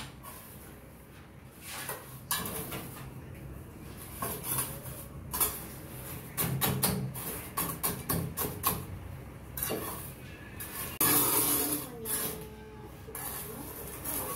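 Pointed steel mason's trowel working wet cement mortar into wooden formwork: a string of sharp clicks and taps as the blade strikes and presses the mix, with a longer scrape near the end as it smooths the surface.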